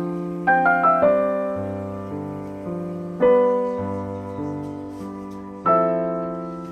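Background piano music: a few quick notes about half a second in, then sustained chords struck twice more, each fading away slowly.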